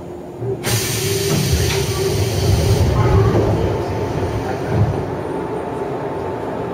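JR 103-series electric train standing at a station: a sudden loud hiss of compressed air starts about half a second in and lasts about two seconds, with low rumbling under it and a steady hum throughout.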